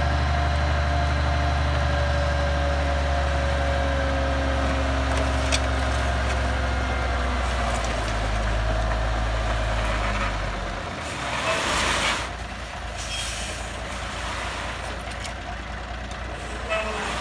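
Dump truck's diesel engine running while the raised bed tips a load of dirt, with a whine that slowly falls in pitch. About eleven seconds in the engine drops back and a short, loud hiss of air is let out, then the engine runs on more quietly.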